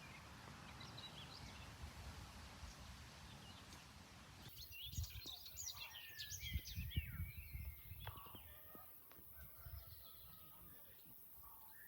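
Small birds chirping, a scatter of short rising and falling calls that start about four and a half seconds in, over a faint low wind rumble on the microphone.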